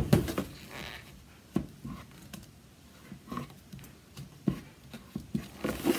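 A square plastic container of thick soap batter is set down on a stainless steel table with a loud knock. Then come scattered knocks and scrapes as a wooden stick stirs the batter inside it.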